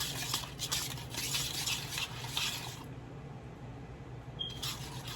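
Powdered-sugar and coconut-milk glaze being stirred in a bowl: quick repeated scraping strokes, which pause about three seconds in and start again near the end.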